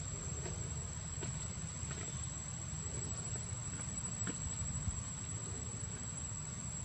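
A steady high-pitched insect drone over a low rumble, with a few faint clicks.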